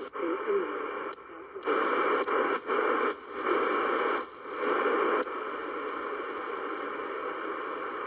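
Static hiss from a retro VIDO portable radio as its tuning knob is turned between stations. The hiss surges and drops in patches for about five seconds, then holds steady.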